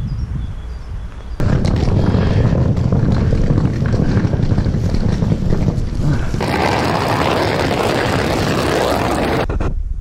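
Wind buffeting the camera's microphone as it is swung about outdoors: a loud, even rushing noise, heaviest in the low end, that turns brighter and hissier about six seconds in.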